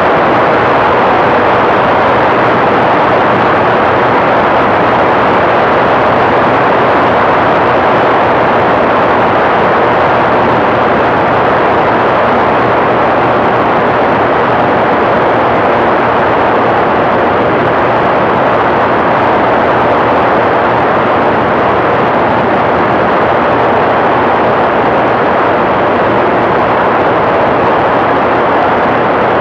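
TrueLite ultralight aircraft's engine and propeller running steadily at constant power, mixed with loud, even rushing air noise.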